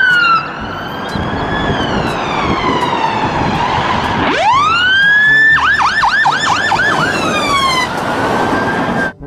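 Fire engine siren on an emergency run: a wail falling slowly in pitch, then sweeping back up about four seconds in, switching to a fast yelp for about a second and a half, then falling away again. Vehicle engine and road noise run underneath.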